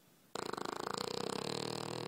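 Sleeping dog snoring: one long, fast-fluttering snore that starts about a third of a second in.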